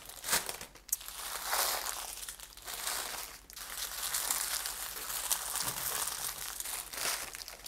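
Small plastic bags of diamond-painting drills crinkling in irregular bursts as hands gather them up and tuck them into a larger clear plastic bag.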